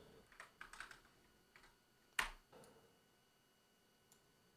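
Faint computer keyboard keystrokes: a few quick taps in the first second, then one sharper click about two seconds in, with near silence between.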